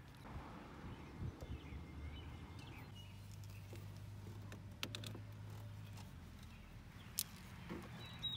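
Faint scattered clicks and rattles of jumper cable clamps being handled and clipped onto battery terminals, with one sharp click about seven seconds in, over a faint low hum.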